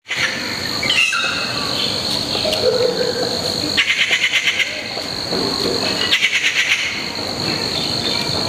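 Insect chorus with a steady high-pitched drone. Two bursts of fast, evenly pulsing calls come near the middle, and a few short chirps about a second in.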